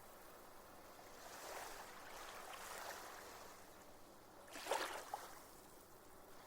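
Small waves washing on a reef shore, faint and swelling gently, with a sharper splash about three-quarters of the way through.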